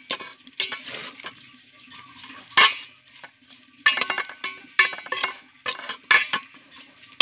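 Metal spoon stirring and tossing roasted Indian trumpet-tree pods and snails in a metal bowl: irregular scrapes and clanks, the bowl ringing briefly after some strikes, the loudest about two and a half seconds in.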